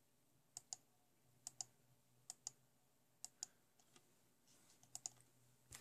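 Computer mouse button clicked about six times, roughly once a second, each click a quick double tick of press and release, stepping a coronagraph image loop forward frame by frame.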